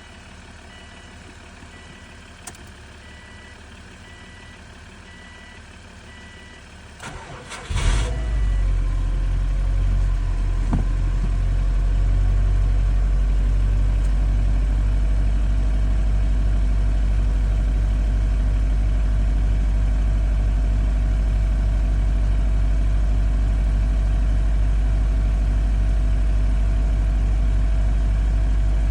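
Subaru STI's turbocharged flat-four engine cranking briefly and starting from cold about seven seconds in, then settling into a steady fast idle with a regular low pulse; the owner reports engine knock. Before the start, a dashboard chime beeps regularly and stops just after the engine catches.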